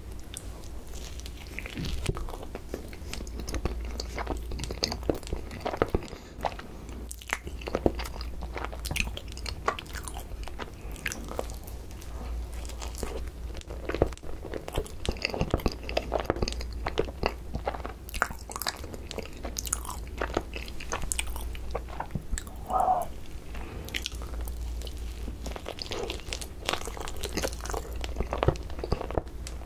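Close-miked chewing of a soft cream-filled bun, with bites, wet mouth sounds and many small irregular clicks.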